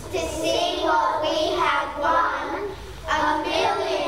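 Young children's voices singing together, in two phrases with a short break about two and a half seconds in.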